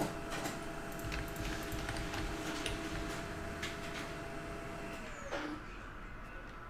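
Printer running as it prints a page: a steady whine with scattered clicks, its motor winding down with a falling pitch about five seconds in.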